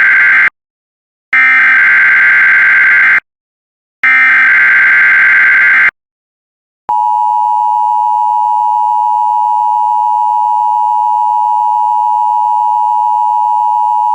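Emergency Alert System SAME header: the end of one burst of harsh electronic data chirping, then two more bursts of about two seconds each, a second or so apart. After a brief silence, the steady EAS attention tone begins about seven seconds in.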